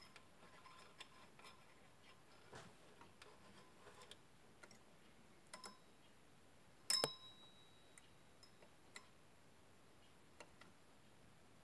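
Small parts being handled by hand: faint, scattered clicks and taps, with one sharper double click about seven seconds in that rings briefly.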